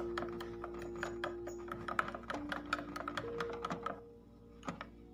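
A plastic spoon clinking against a ribbed glass tumbler as a drink is stirred briskly: a quick run of light ticks, about five a second, that stops about four seconds in, leaving a few scattered clicks. Soft background music plays underneath.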